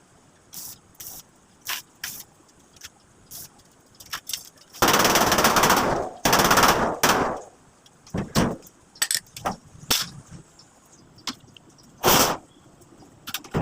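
Welding arc crackling in two short bursts of about a second each, tack welds on a steel frame, with scattered sharp clicks and taps before and after.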